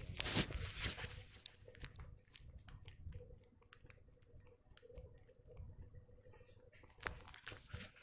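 Faint scattered clicks and rustling. A brief louder rustle comes at the start, and a few sharper clicks come about seven seconds in.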